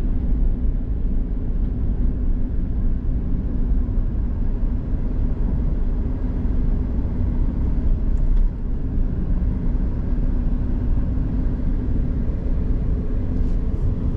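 Steady engine and tyre drone heard from inside the cabin of a car moving at a steady speed, strongest in the low end.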